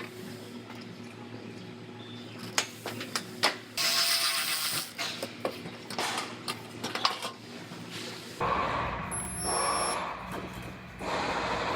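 Clicks, knocks and brief rattles of car body parts and hand tools being handled. About eight seconds in, a steadier, noisier shop sound with a low hum takes over.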